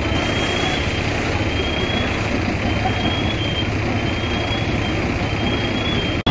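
Fire truck engine running steadily, as a Scania pumper does while driving its pump to supply charged hose lines. A short high beep repeats about once a second over it, and the sound drops out for an instant near the end.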